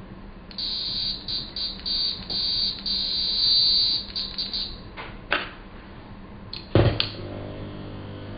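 Piezo speaker of a solar-powered DIY wrist synthesizer sounding a high-pitched electronic tone that cuts in and out irregularly for about four seconds as its buttons are pressed. A few clicks follow, then a louder click about seven seconds in as a mini-jack cable is plugged in, leaving a low hum.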